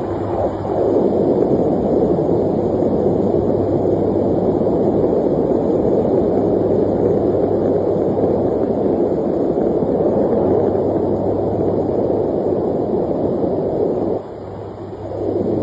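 Steady noise of an aircraft in flight: a dense rushing engine and air noise over a constant low hum. It drops away for about a second near the end, then comes back.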